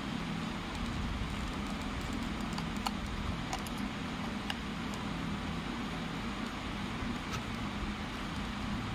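Steady mechanical hum and noise, with a few faint light clicks from a screwdriver turning the cover screws of a moulded case circuit breaker.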